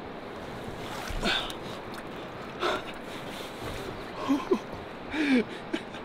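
A man's short breathless exclamations and gasps as he hauls a heavy fish out of a landing net, two of them about four and five seconds in, over a steady hiss of wind and water, with a couple of brief splashes or knocks earlier on.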